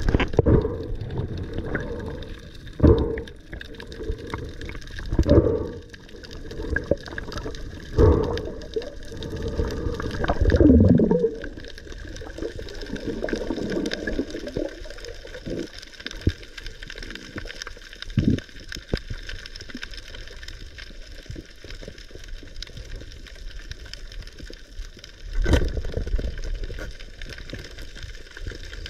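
Muffled underwater water noise recorded by a submerged camera: gurgling and rushing water, with strong surges about every two to three seconds in the first half. After that the water noise is steadier and quieter, with a couple more surges.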